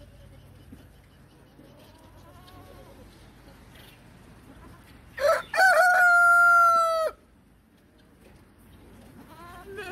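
A rooster crowing once, about five seconds in, the crow ending in a long held note. A goat bleats briefly near the end.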